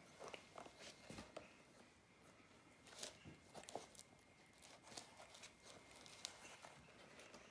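Faint, irregular clicks and scrapes of a puppy chewing and gnawing on a suede clog.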